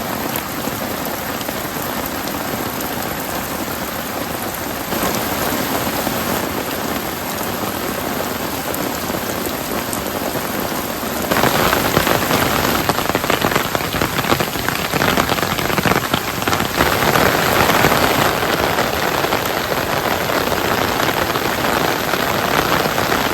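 Steady rain falling, becoming louder and heavier about eleven seconds in.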